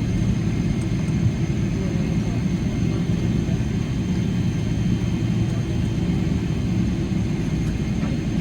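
Steady, unbroken low rumble of a Boeing 777-300ER heard from inside the cabin, with a faint thin whine above it.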